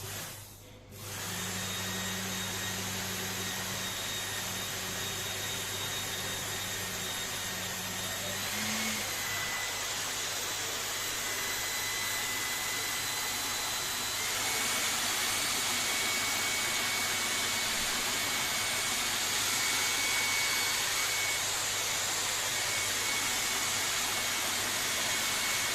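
Small brushed electric motor with its cleaned armature and commutator running steadily at speed: a whir with a thin whine and a low hum. It starts about a second in, and its pitch and level step up slightly twice along the way.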